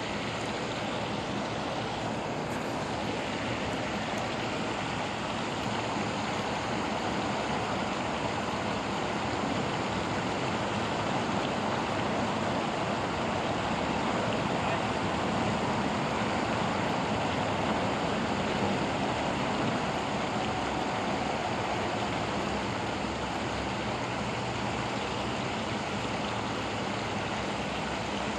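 Water pouring over a low concrete spillway, a steady rushing noise.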